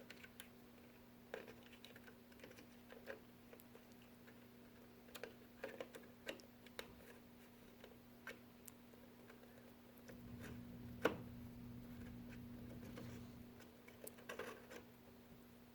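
Faint scattered clicks and taps of a DDR4 memory stick being handled and fitted into its motherboard slot, with one sharper click about eleven seconds in over a brief low rumble.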